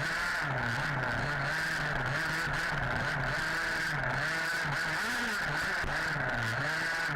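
Two-stroke petrol engine of an HPI Baja 5B RC buggy, revving up and down as the throttle is worked through the track, its pitch dropping and climbing again about five times.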